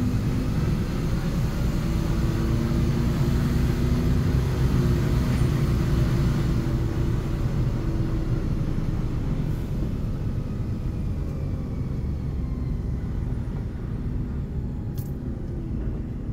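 Steady low rumble of a running vehicle, easing off slightly toward the end, with a single sharp click near the end.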